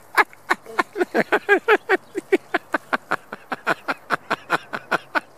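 A person laughing in a long, unbroken run of short pitched 'ha' pulses, about four to five a second, each falling slightly in pitch.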